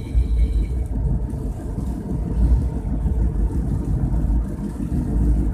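Steady low rumble of a car moving along a road: engine and tyre noise.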